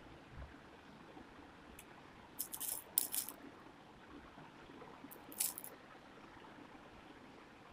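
Small plastic seed beads clicking and rattling against each other and the needle: a cluster of sharp little clicks a little over two seconds in, and a shorter one about five seconds in.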